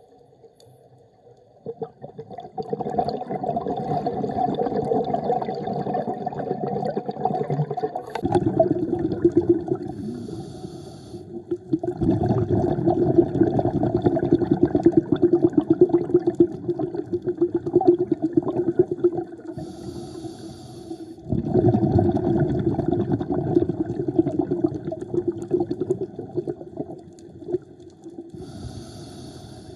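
Scuba diver breathing through a regulator underwater: a short hiss of inhaling about every nine seconds, three times, each followed by several seconds of loud bubbling as the breath is let out.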